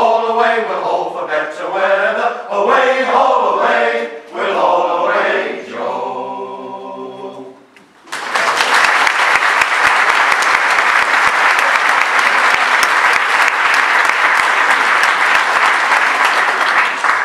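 Unaccompanied male shanty choir singing the last lines of a sea shanty, ending on a long held chord. After a short pause, about halfway through, the audience breaks into steady applause.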